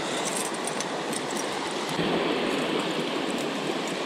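Creek water rushing steadily, growing a little louder about halfway through, with a few light metallic clinks from a chain fish stringer being handled.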